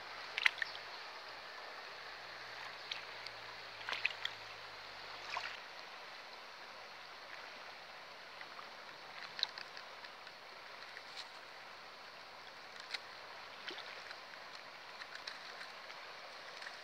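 Flowing river water rushing steadily, with scattered sharp clicks and light splashes from hands working among dry sticks in the shallows at the water's edge.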